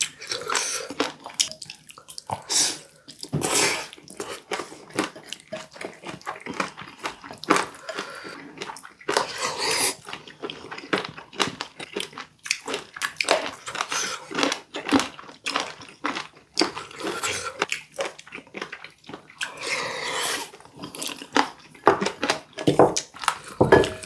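Close-miked eating sounds: wet chewing, crunching and smacking of food in the mouth, with scattered sharp clicks throughout.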